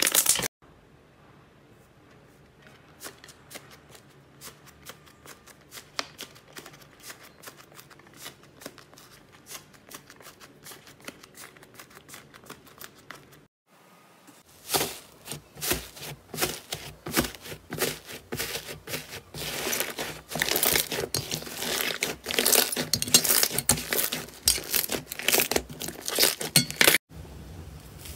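Slime being pressed, squished and pulled apart by hand, making sticky clicks and crackly, crinkling pops. The first half is quieter; after a brief gap about halfway through, the crackling becomes denser and louder.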